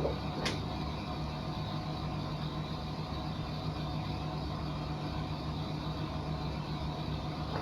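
Steady low mechanical hum, with a single sharp click about half a second in.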